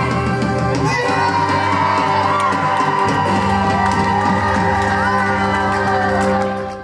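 Live band music with piano and drums, and a crowd cheering and singing along.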